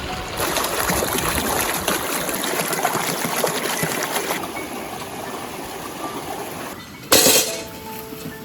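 Water pouring and trickling, a dense rush that starts about half a second in and eases off after about four seconds, with a short, louder burst of noise about seven seconds in.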